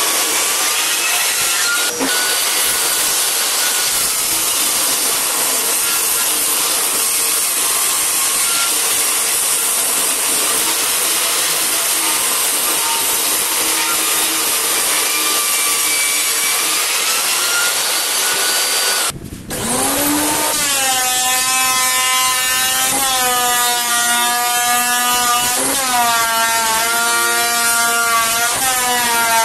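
Table saw ripping a pine board, a steady noisy cut with a wavering tone from the blade. After a short break about two-thirds of the way through, the motor of a Makita 2012NB portable thickness planer spins up with a rising whine and runs on, its whine shifting in pitch as the board feeds through.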